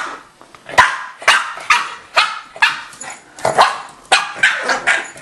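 Boston terrier barking repeatedly at a vacuum cleaner that isn't running, sharp barks about two a second after a short pause at the start.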